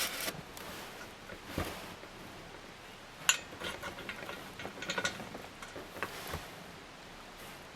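Ceiling fan parts and hardware being handled, with faint rustling and a few scattered sharp clicks and clinks.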